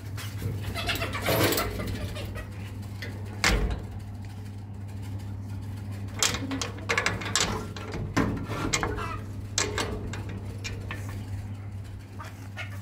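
A steady low hum, with a dozen or so short knocks and scrapes scattered through it; the loudest knock is about three and a half seconds in.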